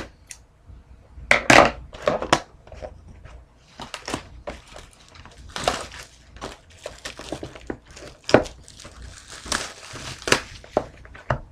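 Plastic shrink-wrap crinkling and tearing as a sealed box of trading cards is opened: irregular crackling with a few sharper, louder rips.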